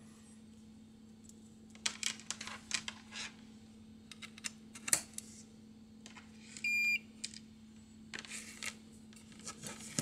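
Rustling and clicking of a USB cable being handled and its plug pushed into a USB cable tester's port, then a single short, high beep from the tester's buzzer about two-thirds of the way through.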